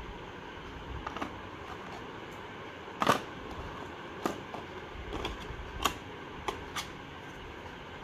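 Scattered light clicks and taps, about eight in all, the loudest a little after three seconds in, from small unpainted game miniatures being handled, picked up and set down against a cardboard game box, over steady low background noise.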